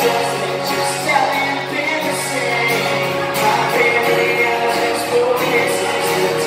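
Rock band playing live, with a male singer's voice over guitar.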